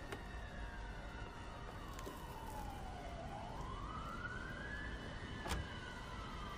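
A faint siren wailing, its pitch sliding slowly down and then back up over a few seconds, over a low rumble. Two sharp clicks, one at the start and a louder one near the end.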